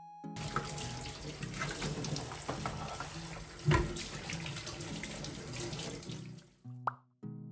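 Kitchen tap running into a stainless-steel sink while dishes are washed by hand, with crockery clinking and one louder knock about halfway through. The water stops shortly before the end.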